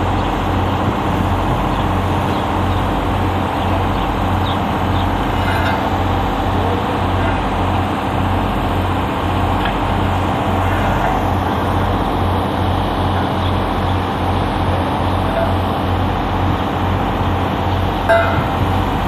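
Industrial plant machinery running steadily, with a low hum that throbs at an even beat. There is a single sharp knock near the end.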